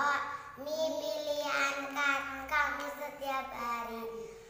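Young girls singing a slow tune with long held notes.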